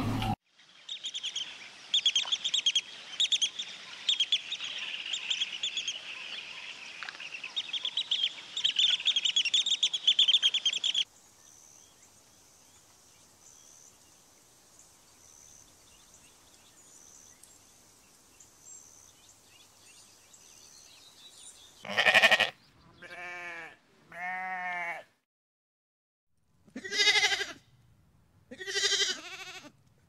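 Goats and sheep bleating: several separate loud calls in the last eight seconds. Before them come about ten seconds of rapid high-pitched chirping, then a quiet stretch with only a faint high tone.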